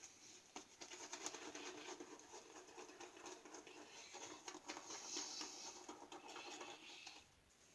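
Shaving brush working up lather from a soap loaded fairly dry: a faint, steady swishing with many small clicks, starting just after the beginning and stopping about seven seconds in.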